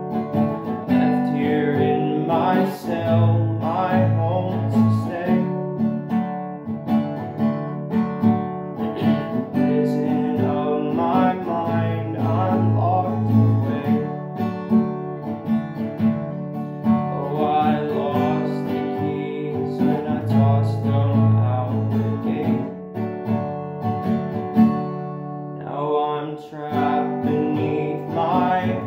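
Acoustic guitar strummed in a steady chord progression, with a pattern that repeats every several seconds, an instrumental stretch of a country-style song.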